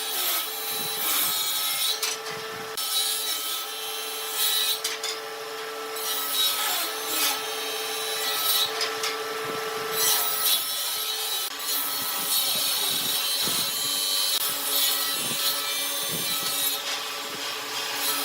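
A tool working wood: continuous rasping, sawing-like strokes that swell and ease every second or so, over a faint steady motor hum.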